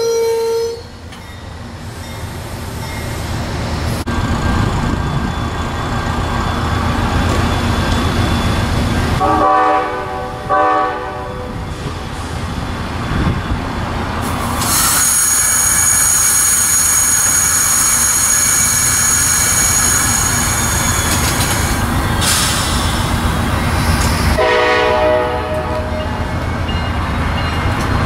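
Amtrak passenger train starting to move, its P42DC diesel locomotive's engine growing louder over the first few seconds. A train horn gives two short blasts about ten seconds in. From about halfway, the cars roll past with a high-pitched squeal from the wheels for several seconds.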